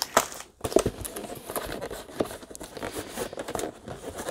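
Clear plastic bag of packaged diamond-painting drills crinkling and rustling as it is handled and set down on a table, with small taps.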